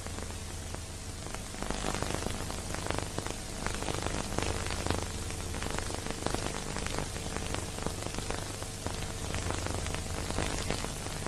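Steady crackling hiss over a low electrical hum, with no music: the surface and transfer noise of an old, otherwise silent film soundtrack.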